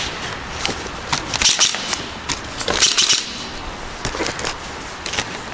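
Airsoft gunfire: sharp clicking shots at irregular intervals, with two dense rapid bursts about one and a half and three seconds in.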